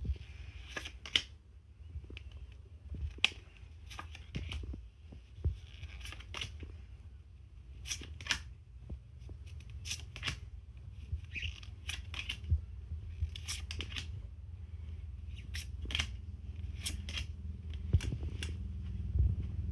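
Pokémon trading cards from a booster pack being handled and flipped through: a string of sharp clicks and snaps with soft sliding rustles between them, over a low steady hum.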